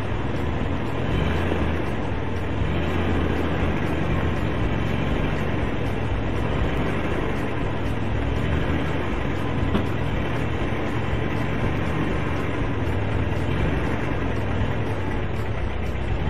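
Car engine idling, a steady low rumble with hiss heard from inside the car.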